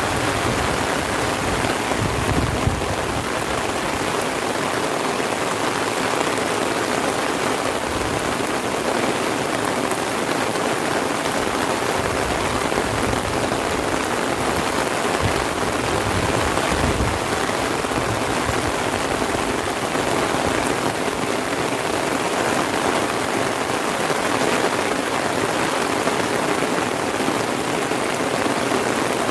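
Heavy rain falling steadily, a dense, even hiss of drops hitting the ground and surroundings, with a few brief low rumbles.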